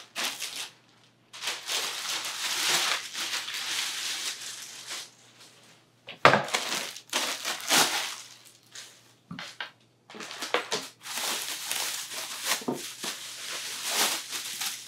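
Plastic packaging and bubble wrap crinkling and rustling as cart parts are pulled out and unwrapped, in several bouts with short pauses between them. A sharp knock about six seconds in is the loudest moment.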